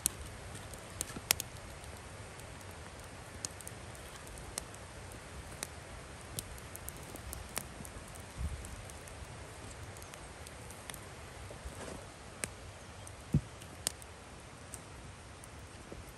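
Open wood fire crackling with scattered sharp snaps, along with knocks of split firewood being picked up and laid onto the fire. A couple of louder cracks, one about a second in and one near the end.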